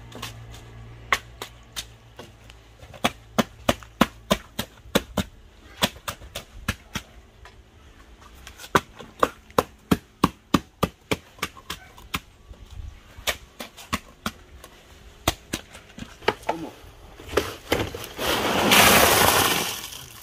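Wet concrete being rammed and worked into a rebar-reinforced footing with a wooden board, giving a run of irregular sharp knocks, two or three a second at their busiest. Near the end comes a loud rushing noise lasting about two seconds.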